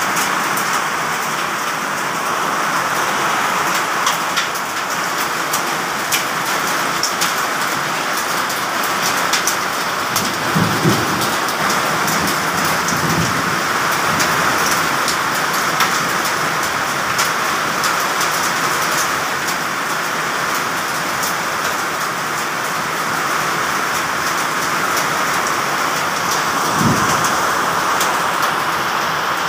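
Heavy rain pouring steadily, with many sharp ticks of drops striking hard surfaces close by. Short low rumbles of thunder come about a third of the way in and again near the end.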